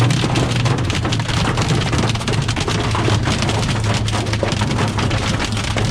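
Dime- to nickel-sized hail pelting a vehicle in a dense, continuous clatter of rapid impacts, over a low steady hum.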